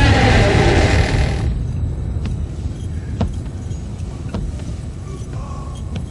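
A heavy metal prison door or gate grinding for about the first second and a half. Then a handful of sharp, separate metallic clicks and clanks of keys and lock.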